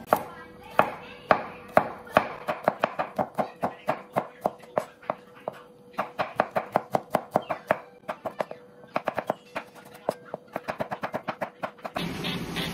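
Chef's knife chopping garlic cloves on a wooden cutting board: quick runs of sharp knife strikes against the board, about four to six a second.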